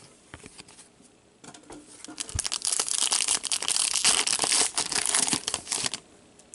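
Foil wrapper of a hockey-card pack being torn open and crinkled by hand: a dense run of crackles that starts about a second and a half in and stops abruptly near the end.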